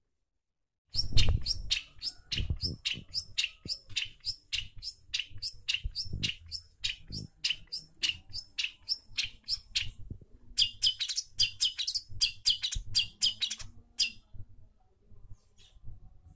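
Long-tailed shrike (cendet) singing: a long series of sharp, high, chirping notes at about three a second, breaking into a faster, denser run of notes about ten seconds in and stopping about four seconds later.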